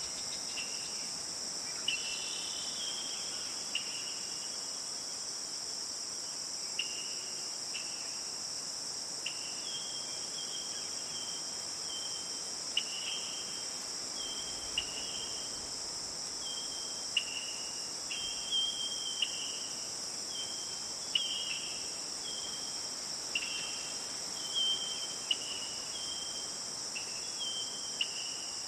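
Steady high-pitched drone of crickets or similar insects in a forest, with a bird giving short repeated calls, each a high note stepping down to a lower one, every second or two.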